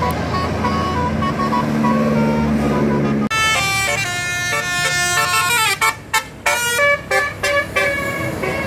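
Bus telolet horn, a multi-tone electric air horn, playing a jingle of stepped notes, then several short toots. It comes in abruptly after a few seconds of a steady low drone.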